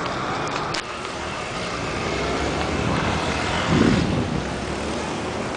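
Road traffic noise, with one vehicle passing close and loudest a little under four seconds in.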